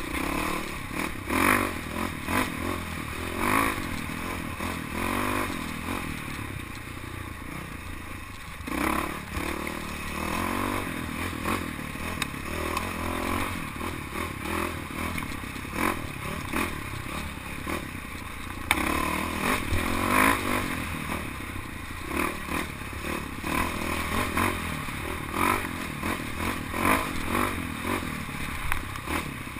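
Dirt bike engine on a trail ride, revving up and falling back again and again as the throttle opens and closes, with rattling and knocks from the bike over the rough ground.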